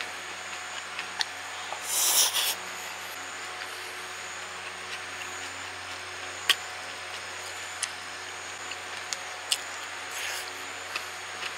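Metal tongs clicking and scraping against a white disposable bowl while rice is scooped, with a short scraping rustle about two seconds in and a softer one near the end. A few separate sharp clicks come over a steady background hiss.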